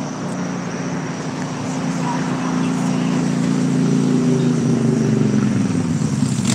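A motor vehicle's engine running, a low hum that grows gradually louder and dips slightly in pitch midway.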